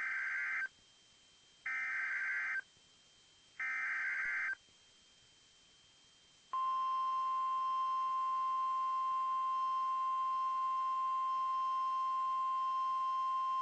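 Emergency Alert System tones heading a tornado warning: three bursts of screechy SAME header data, each about a second long, then a steady, single-pitched attention tone that starts about six and a half seconds in.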